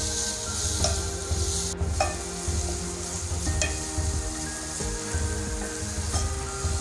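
Chopped onions sizzling in hot coconut oil in a non-stick pot, stirred with a wooden spatula, with a few sharp taps and scrapes of the spatula against the pan.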